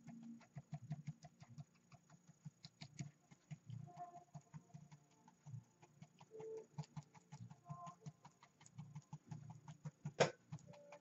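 Stiff foliage brush loaded with oil paint being tapped against the canvas to dab in bushes: quick, irregular light taps, several a second, with one sharper knock about ten seconds in.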